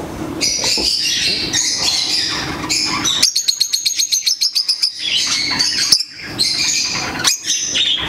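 Many small caged parrots, lovebirds and budgerigars, chattering and chirping together. About three seconds in, a fast run of short, high chirps, about eight a second, lasts under two seconds.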